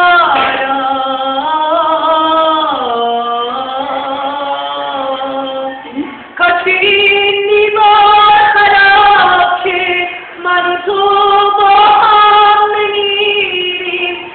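A female voice singing a slow melody with long held notes, the pitch stepping down about three seconds in and the singing pausing briefly about six seconds in before going on.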